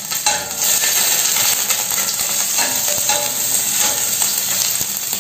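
Green chillies sizzling and frying in hot mustard oil in a steel kadai, stirred with a spatula that clicks now and then against the pan.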